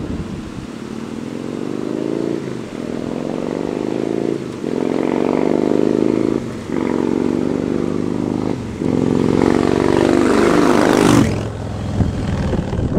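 Yamaha Star Raider's V-twin through a Cobra Speedster Swept exhaust with fiberglass-wrapped baffles and Hard Kore baffle inserts, accelerating hard through the gears on a drive-by. The pitch climbs in each gear with four upshifts about two seconds apart, growing louder as the bike approaches, and drops sharply as it passes about eleven seconds in.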